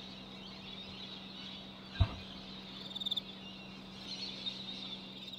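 A steady, high-pitched chorus of chirping animals, with brighter flurries of calls now and then over a faint low hum. A single thump sounds about two seconds in.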